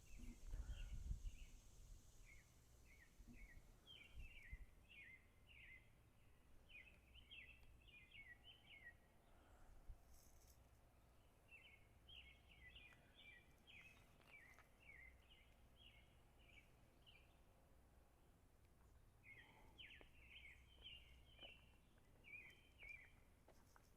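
Faint high chirping in three long runs of quick repeated notes, over a low background rumble.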